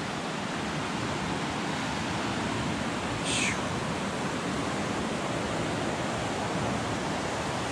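Steady rushing of a mountain river running over rocks in rapids, with a brief high falling sound about three seconds in.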